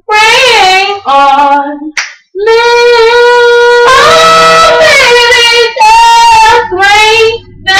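A young female voice singing solo without accompaniment: short phrases of vocal runs and long held notes, with brief breaks between them. The longest note is held for about a second and a half near the middle.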